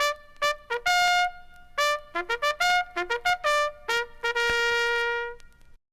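Bugle call: quick, separate brass notes on the bugle's few open pitches, ending in one long held note that stops shortly before the end.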